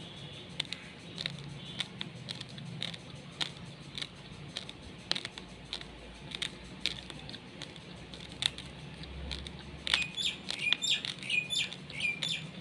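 Scattered sharp crunches of raw basmati rice grains being chewed, a few each second. A bird chirps in quick short notes over the last few seconds.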